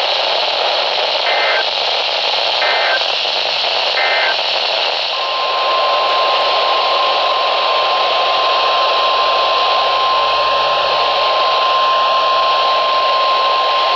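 NOAA Weather Radio alert heard through a receiver with a steady static hiss: three short bursts of SAME header data, then the single steady 1050 Hz warning alarm tone. Together they signal the start of a new weather warning.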